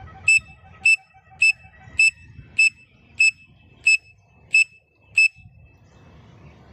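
A pen cap blown like a whistle to imitate a grey francolin (teetar) call: nine short, high-pitched whistle notes at an even pace, a little over one and a half a second, ending about five seconds in.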